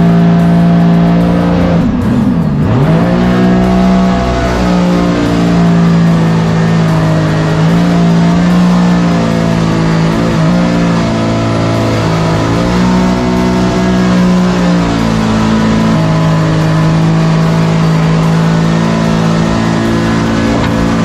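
Music with held chords over a supercharged Sea-Doo RXP jet boat engine, which revs down and back up a few times.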